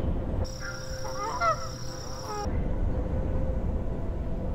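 Geese honking, a quick run of several calls lasting about two seconds, starting about half a second in, over a steady low rumble.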